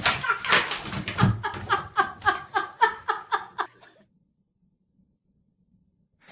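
A person laughing hard in quick, even bursts of about four a second, over splashes and thumps from a cat in bathtub water at the start. The laughter stops abruptly about four seconds in, and near silence follows.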